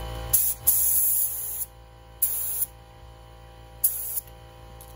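Gravity-feed spray gun spraying epoxy primer on compressed air, in four short bursts of hiss that start and stop sharply: test passes to check the spray pattern, which looks good.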